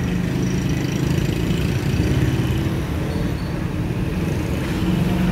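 Steady street noise with the low, even hum of a running engine and passing traffic.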